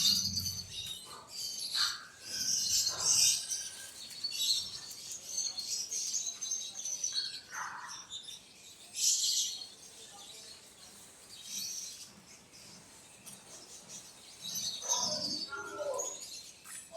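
Birds chirping: many short, high chirps in clusters, coming and going throughout.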